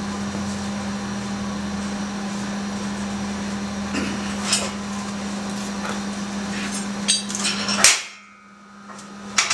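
Steel knocks and clanks as the hinged leaf of a homemade angle-iron sheet metal brake is forced through its swing on new welded pipe hinges that are still very tight. A few sharp clanks come close together near the end, the last the loudest. A steady hum runs underneath and cuts off abruptly at that clank.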